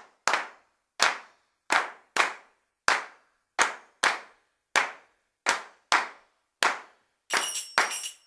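About a dozen sharp hand claps in a loose, uneven rhythm, each with a short ringing tail. A jingling tambourine comes in about a second before the end.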